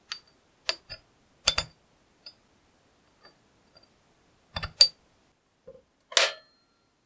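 Small steel plates clicking and tapping against the cast-iron jaw of a vise as they are fitted into place: a scattered series of short, sharp metallic clicks, the loudest about a second and a half in and just before five seconds in. Another sharp click comes near the end.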